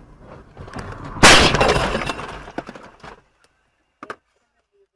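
Car crash: a loud impact about a second in, followed by glass shattering and debris clattering for about two seconds, after which the sound cuts out suddenly. One short knock comes near the end.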